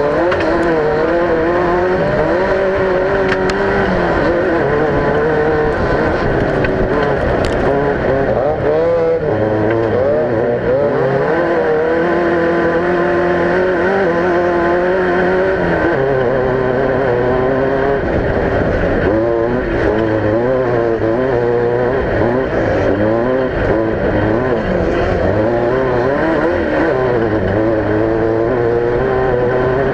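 Off-road race vehicle's engine running hard, its pitch rising and falling as the throttle and gears change.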